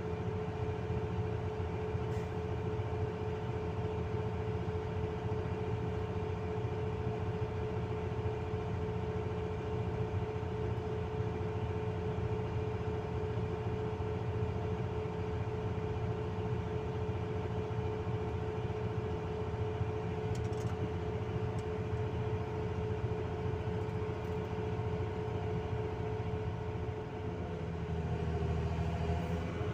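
Diesel excavator engine and hydraulics running at a steady idle, with a constant drone and a strong steady whine. Near the end the engine note changes and grows a little louder as the arm moves out over the dump truck's bed to load it.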